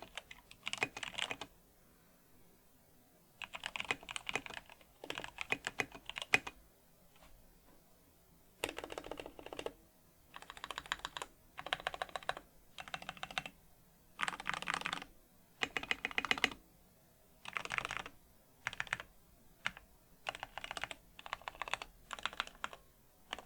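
Typing on a custom 60% mechanical keyboard in an aluminium Tofu 60 case, with lubed vintage Cherry MX Black linear switches on 78 g springs and SA-profile keycaps. The keystrokes come in quick bursts of several keys separated by brief pauses.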